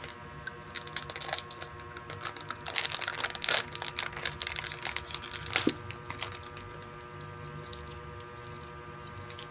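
Close-up eating: a plastic wrapper crinkling around a bread roll as it is bitten and chewed, a rapid, irregular crackle of clicks that thins out after about six seconds.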